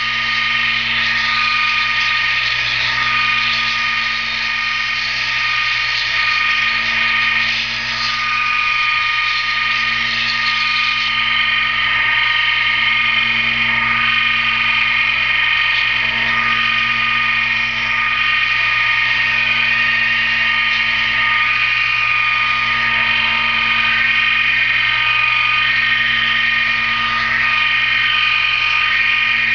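Small wood lathe running steadily with a whine, spinning a wooden popper blank while it is shaped and sanded. There is a scraping hiss over the motor that eases about eleven seconds in.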